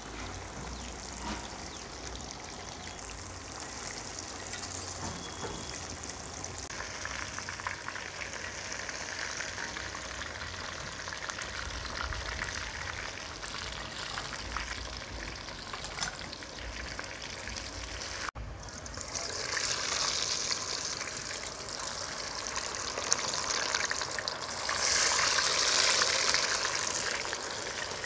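Marinated trevally pieces deep-frying in a kadai of hot oil: a steady sizzle with fine crackling as the oil bubbles around the fish. The sound drops out for an instant about two-thirds through, then comes back louder.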